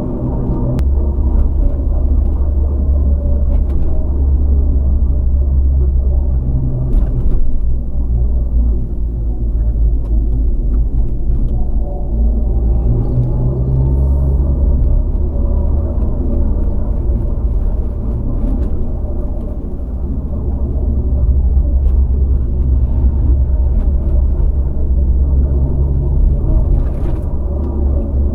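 A 3-door Land Rover Freelander driving along a country road: a steady low engine and road rumble, with a few faint clicks here and there.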